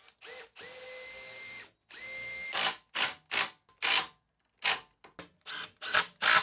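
Cordless drill running in two steady bursts with a constant whine, boring pilot holes in plywood. From about two and a half seconds in, a string of short loud bursts as a Makita cordless impact driver drives screws into the plywood.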